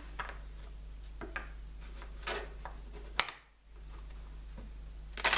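Tarot cards being handled and shuffled: soft rustles and light taps, with one sharp click about three seconds in, over a low steady hum.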